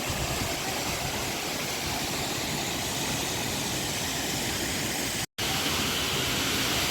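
Steady rushing of a waterfall's falling water, an even hiss and roar with no pauses, cutting out for a split second about five seconds in.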